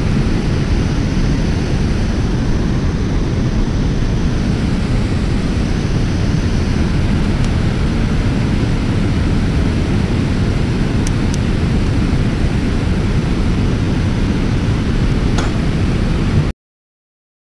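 Steady rush of water pouring over a dam spillway and churning below it, a dense noise heavy in the low end, cutting off suddenly near the end.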